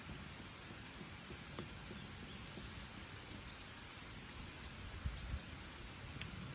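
Wood campfire crackling, with a steady hiss and a few sharp, scattered pops, and a low rumble about five seconds in.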